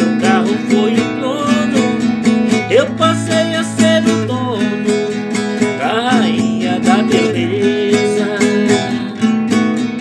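Nylon-string classical guitar strummed in a steady rhythm, with a man's voice singing or vocalising over it at times.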